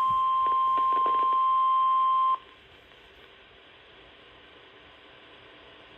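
NOAA Weather Radio 1050 Hz warning alarm tone: one steady high beep that cuts off abruptly about two seconds in, leaving a faint steady radio hiss. The tone is the alarm that a warning broadcast follows.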